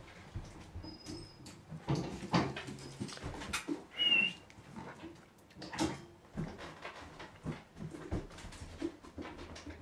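Weimaraner puppy shuffling about on a carpeted stair landing: scattered soft knocks and scuffs of paws and claws, with one short high whine about four seconds in.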